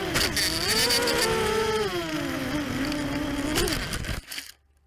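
Brushless motors and propellers of an ImmersionRC Vortex 250 racing quadcopter whining, the pitch rising and falling with the throttle, with a few sharp clicks, heard from the onboard camera. The motors cut off suddenly about four seconds in as the quad ends up in the grass after a crash.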